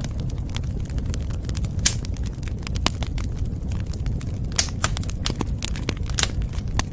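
Wood fire burning in a fireplace: a steady low rumble with irregular sharp crackles and pops from the burning wood, a few of them louder.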